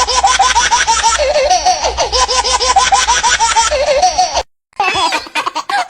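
A baby laughing hard in rapid, high-pitched bursts. It cuts off abruptly about four and a half seconds in, and after a brief gap a second stretch of similar laughter starts.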